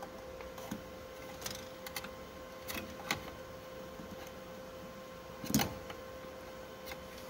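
Scattered light clicks and taps of hands handling plastic wire harness and ink tubing inside a printer's sheet-metal chassis, the loudest knock about five and a half seconds in. A faint steady hum runs underneath.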